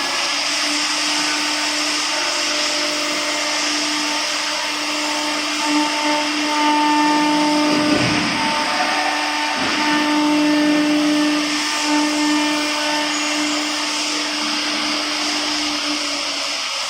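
Air-cooled spindle of a CNC router running and cutting wood: a steady high whine over a hiss of cutting noise, which grows somewhat louder in the middle.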